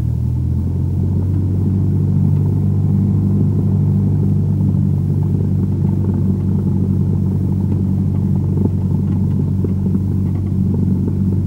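Single-engine light aircraft's carbureted piston engine running steadily at taxi power, heard from inside the cockpit. Its tone shifts slightly and gets a little louder under a second in as power is added.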